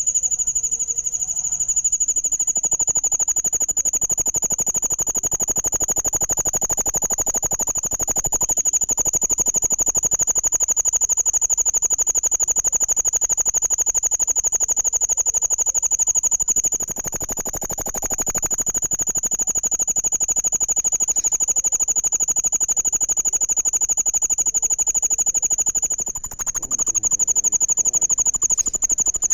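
Insects trilling continuously: a loud, steady, high-pitched chirring with a very fast even pulse.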